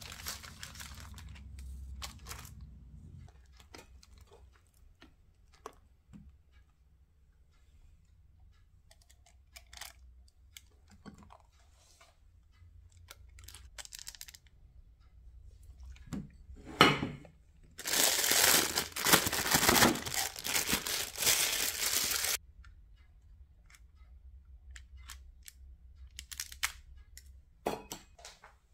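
Clear plastic piping bag crinkling and rustling as buttercream is scraped into it with a spatula. The loudest part is a dense stretch of about four seconds past the middle that cuts off suddenly. Near the start, baking paper rustles under a sponge cake sheet being handled.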